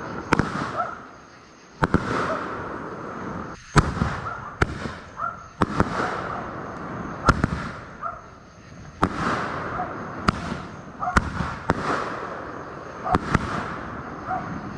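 Aerial fireworks going off one after another, a dozen or so sharp booms at uneven intervals, each trailing into a fading crackle and hiss.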